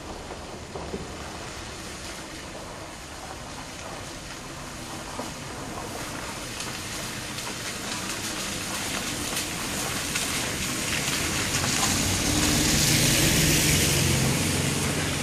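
Nissan minivan driving slowly through water-filled potholes on an unpaved road, tyres sloshing through the puddles over the engine's running. It grows steadily louder as it approaches and is loudest as it passes close, near the end.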